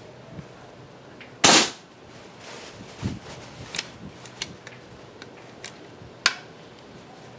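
A single shot from an Evanix Rainstorm II PCP air rifle about one and a half seconds in: one loud, sharp report. It is followed by several lighter clicks and knocks, with a sharper click near the end.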